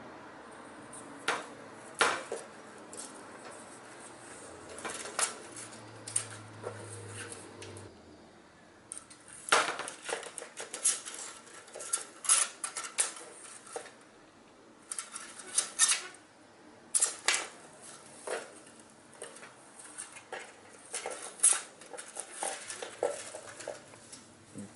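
Slats of horizontal window blinds clattering and clicking as a kitten pushes its head and paws in and out between them. The clicks come irregularly, some in quick clusters.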